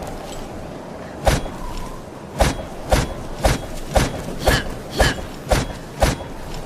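Short sword strikes: nine sharp hits, one alone and then eight in a steady run of about two a second, a couple of them leaving a brief ring.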